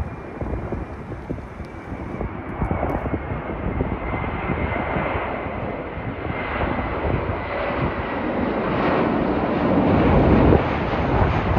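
Air Canada twin-engine jet airliner on landing approach, its engines a rumbling roar with a thin steady whine, passing low overhead and growing louder to a peak near the end.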